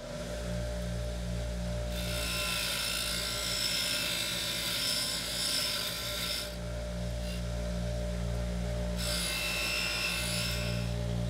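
Bench grinder motor running steadily while a metal plate is pressed against its spinning abrasive wheel, a harsh grinding hiss in two passes: one from about two seconds in lasting around four seconds, and a shorter one near the end.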